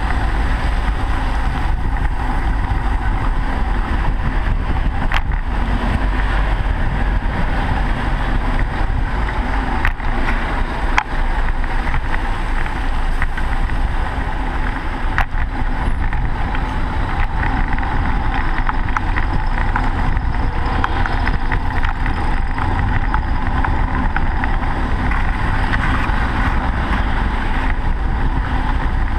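Steady road noise of riding a bicycle along a snow-covered bike lane beside slow car traffic: a low rumble of wind on the microphone under the hiss of tyres and traffic, with a few sharp clicks.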